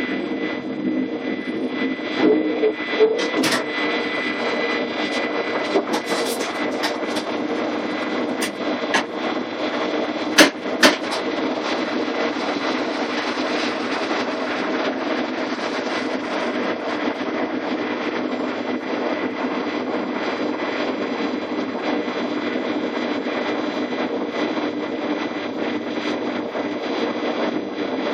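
A DB class 420 S-Bahn electric multiple unit rolling slowly, heard from inside the cab: a steady hum with several fixed tones from its electrical equipment and motors. Scattered clicks and knocks come over the first eleven seconds, the two sharpest about ten and eleven seconds in.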